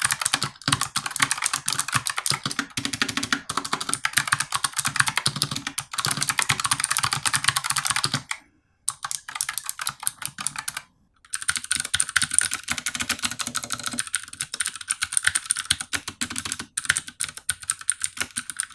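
Fast typing on two clicky 60% mechanical keyboards in turn: a Ducky One 2 Mini with Cherry MX Blue switches and a Razer Huntsman Mini with Razer purple clicky optical switches. After brief pauses about eight and eleven seconds in, the clatter changes to a higher, brighter click with less low thud.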